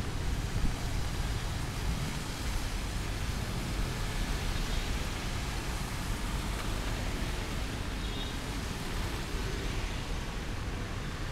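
Steady street ambience in the rain: an even wash of noise with a low rumble of traffic underneath.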